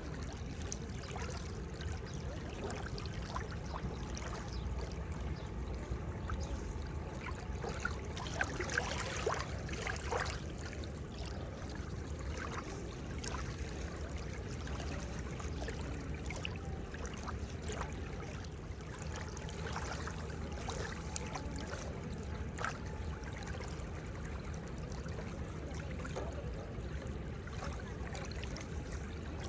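Seawater lapping and splashing at the shore: a steady wash with a low rumble and many small splashes, a few louder splashes about eight to ten seconds in.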